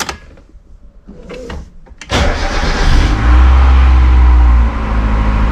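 A few light clicks, then a Mazda Miata NA's four-cylinder engine is cranked by its starter about two seconds in and catches, running high for a moment before settling to a steady idle near the end.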